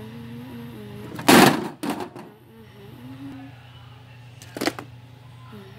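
Plastic wrestling action figures clacking and knocking together. There is a loud knock about a second and a half in, a smaller one just after, and another near the end, over a person humming softly.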